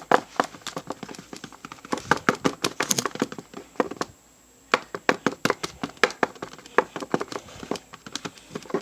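A utensil clicking and tapping irregularly against the side of a container while glue and shaving cream are stirred into slime, with a short pause about four seconds in.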